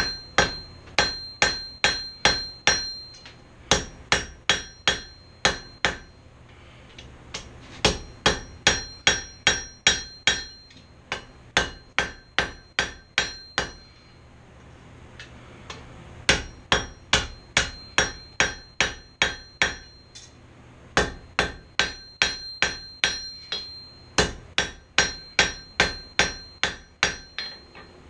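Hand hammer striking hot steel on an anvil, drawing out fork tines: runs of quick blows, about two or three a second, broken by short pauses, each run carrying a high anvil ring.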